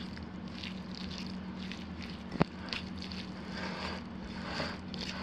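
A small wire whisk stirring finely chopped greens in olive oil in a ceramic bowl: wet, scratchy strokes at about two or three a second, with the wires scraping the bowl. A single sharp click about halfway through, over a steady low hum.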